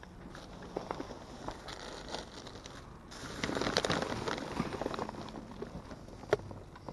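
Plastic bags and packaging rustling and crinkling as the packed contents of a dumpster are dug through by hand. The rummaging is busiest around the middle, and there is one sharp click near the end.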